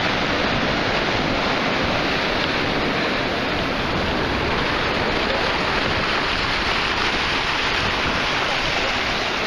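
Ocean surf breaking on a beach: a steady, even rush of water noise with no distinct splashes.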